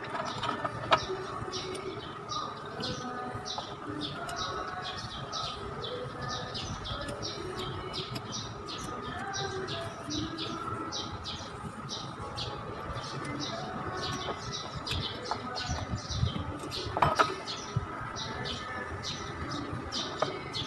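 A bird chirping over and over, short high chirps about two to three a second, with a couple of brief sharp knocks about a second in and again near the end.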